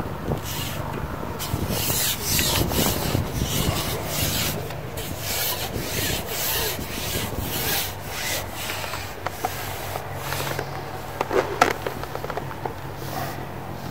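Carbon fishing pole rubbing and scraping as it is handled and slid back over the pole roller, with a few sharper knocks near the end.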